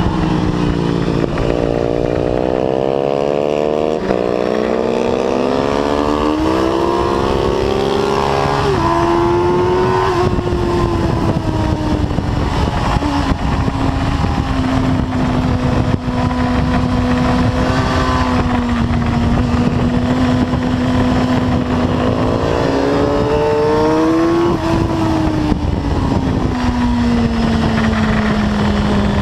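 Suzuki sportbike engine heard from on board at speed, pulling hard with rising revs for about the first ten seconds, then running steadier at part throttle, with a brief rise and ease-off near the end. A constant rush of wind and road noise lies underneath.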